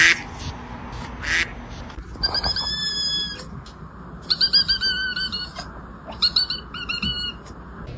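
A cat making rapid, high-pitched, bird-like chirps in three quick bouts, each over a second long, after two short rustling bursts near the start.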